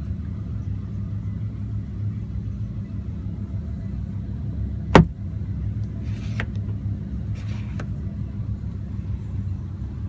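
Steady low idle rumble of the Lamborghini Huracán's 5.2-litre V10, heard inside the cabin. About five seconds in, a single sharp plastic click from the sun visor being handled, followed by two brief soft rustles as the visor mirror cover is opened.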